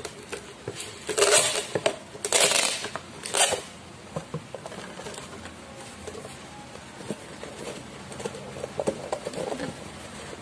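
Clear packing tape pulled off the roll in three loud strips, the first two long and the last short, about a second to three and a half seconds in. After that come quieter scattered clicks and rustling as the taped cardboard is handled.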